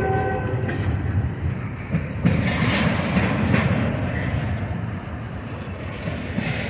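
Double-stack intermodal well cars rolling past close by, the wheels rumbling and clattering over the rails with a few sharp knocks. A locomotive horn chord stops within the first second.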